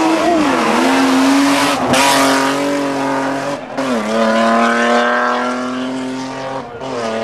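Rally car engine held at high revs as the car accelerates away, with short breaks in the note about two and about three and a half seconds in where the pitch drops: quick gear changes. The engine note fades near the end.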